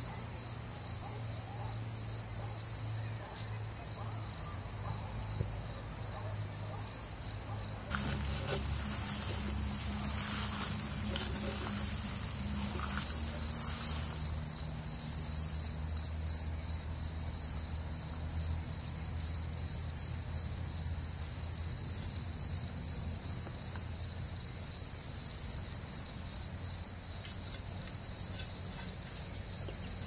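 Crickets in a grassy meadow singing a continuous high-pitched trill with a fast, even pulse, growing a little louder toward the end.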